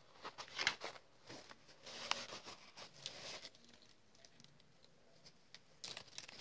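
Faint rustling of lace being handled, a string of soft brushing and rubbing sounds. It goes quieter for a couple of seconds, then starts again near the end.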